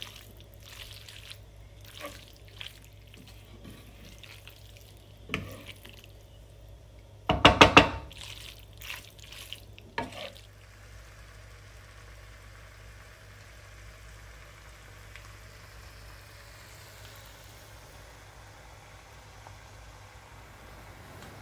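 A utensil scraping and knocking against a nonstick frying pan as pasta, sausage and cabbage are stirred and tossed, with a brief loud harsh scrape about seven seconds in. After about ten seconds only a faint steady hiss remains from the hot pan.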